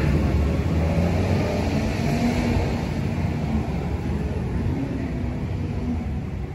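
Steady low rumble of vehicle engines and traffic.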